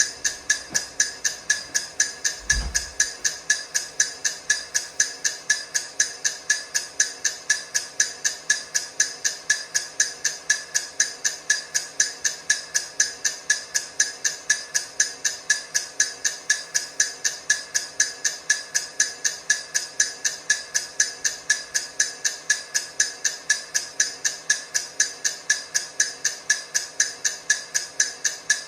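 Countdown-timer ticking sound: rapid, evenly spaced sharp ticks, a few a second, at a steady level, with a brief low thump about two and a half seconds in.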